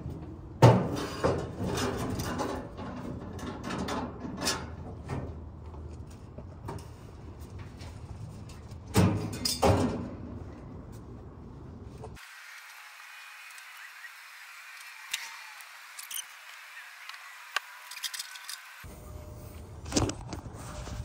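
Sheet-metal clanks, knocks and scraping as an old gas furnace's cabinet is pried and pulled apart by hand, loudest about half a second in and again around 9 to 10 seconds. The sound turns thinner and quieter for several seconds in the middle, and there is another knock near the end.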